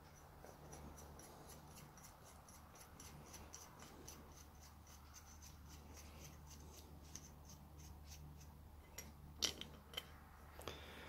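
Faint, quick metal ticks, about four a second, of a nut being spun by hand along the threaded end of a Classic Mini handbrake cable, with a couple of louder clicks near the end.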